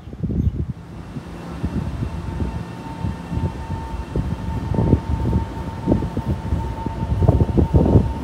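Train running at a railway station platform: an uneven low rumble with a steady high whine setting in about a second in, and wind buffeting the microphone.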